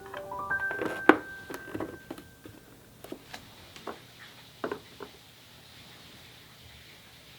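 A quick rising run of chime-like tones, then scattered light knocks and clicks of plastic storage containers being handled and set down, thinning out to a faint hiss for the last couple of seconds.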